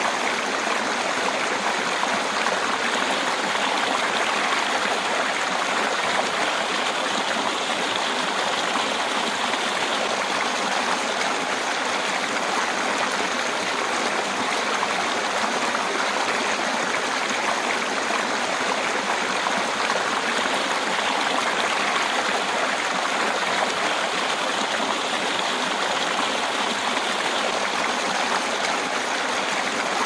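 Shallow river water rippling steadily over a stony bed: an even, unbroken rush.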